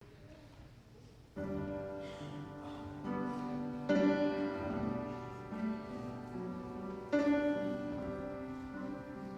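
Slow instrumental song intro of sustained chords. After a quiet first second or so, new chords enter about one and a half, three, four and seven seconds in.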